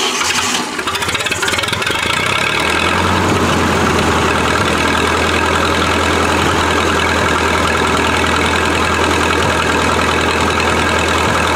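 Old gasoline engine of a welding machine running on choke just after starting. It is rough for the first couple of seconds, then settles into a steady run. It has a stopped-up carburetor and is running on old, stale gas.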